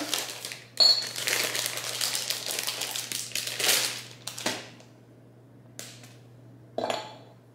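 A chocolate bar's wrapper crinkling as the bar is unwrapped and snapped into pieces, with a sharp snap about a second in. Near the end, a few separate clicks as the broken chocolate drops into a glass measuring jug.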